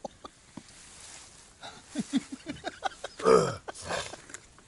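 A man clears his throat hard once, about three seconds in, after some quiet muttering; something bitter has just got into his mouth while eating.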